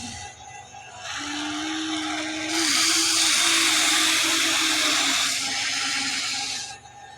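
Huina 1594 RC excavator's small electric gear motors whining as it works. One motor starts about a second in and shifts pitch slightly. A louder, higher grinding joins from about two and a half to five seconds, and the motors stop briefly near the end.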